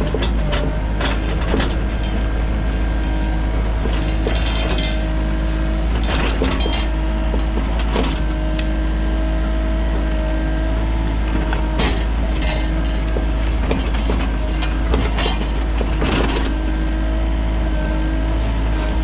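Sany mini excavator's diesel engine running steadily under work, with intermittent metallic clanks and knocks from the machine every few seconds.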